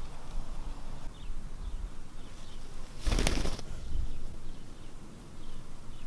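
Indian ringneck parakeet's wings flapping in one short rustling burst about three seconds in, as the bird takes off.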